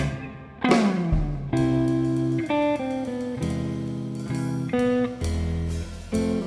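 Instrumental jazz-rock trio of electric guitar, upright bass and drums playing. After a brief dip at the start, a note slides down in pitch, then held guitar chords ring over sustained bass notes.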